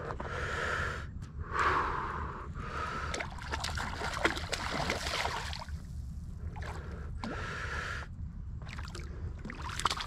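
An angler breathing heavily close to the microphone, a breath every second or two, with scattered light clicks and splashes of water.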